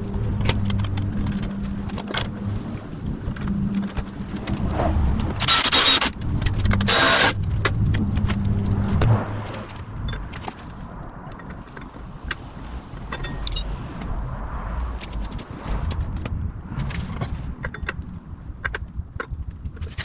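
Hardware and tools clinking and scraping while parts are fitted to the motorcycle, with many small clicks. A low hum runs through roughly the first half, and there are two short loud bursts of noise at about six and seven seconds in.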